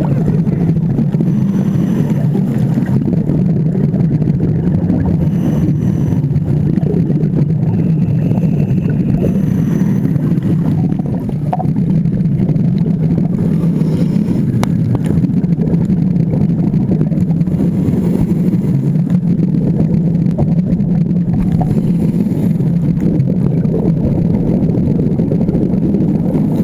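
Steady low underwater rumble picked up through a dive camera's waterproof housing, with faint hissy patches every few seconds from the diver's breathing.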